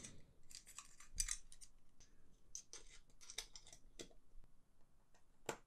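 Faint clicks and scrapes of small parts being handled as an M.2 SSD on its tray is slid into a metal enclosure and the end cap fitted, with a sharper click near the end.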